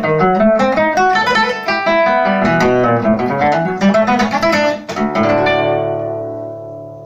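Antigua Casa Nuñez classical guitar with a red cedar top, played fingerstyle: a quick run of plucked notes, then a final chord struck about five seconds in that rings and slowly fades away.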